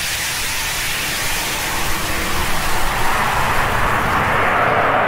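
Small reusable test rocket's engine firing in flight: a steady, loud rushing noise that grows brighter in tone from about two seconds in.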